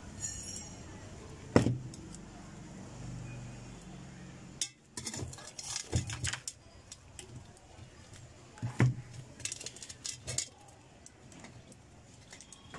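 Scattered metallic clicks and clinks of pliers and the churning machine's steel handle bracket being worked loose from the motor housing, with sharper clicks about a second and a half in and again near nine seconds.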